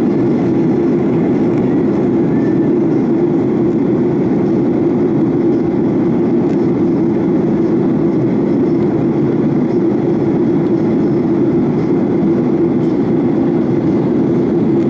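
Steady drone of engine and airflow noise inside the cabin of a Boeing 737-900ER in flight, with a strong low hum.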